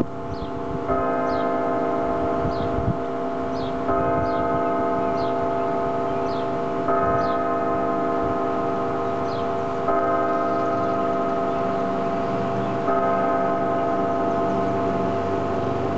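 Church bell struck slowly, one stroke about every three seconds, five times, each stroke ringing on under the next.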